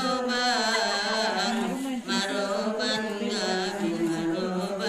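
A woman singing a Mandailing-language kasidah, a wedding song of advice to the bride, unaccompanied, in a slow wavering chant. A short break for breath comes about two seconds in, then the next line begins.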